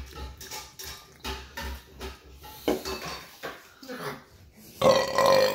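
Scattered clinks and knocks of dishes and cutlery, with a short voice sound near the end.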